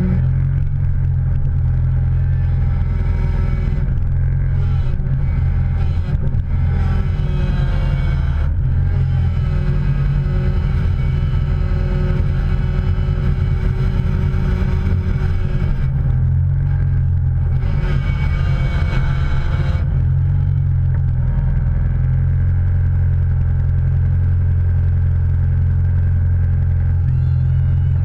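A motor vehicle's engine running: a loud, steady low drone, with engine tones above it that drift gently up and down in pitch.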